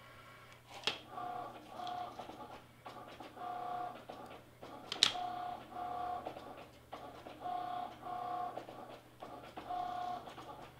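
Cricut Maker cutting glitter iron-on vinyl: its motors whine in short pairs of steady tones every couple of seconds as the carriage and mat move. A sharp click about five seconds in.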